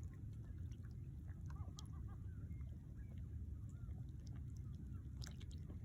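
Faint bird calls, a few short chirps clustered around two seconds in, over a low steady background rumble.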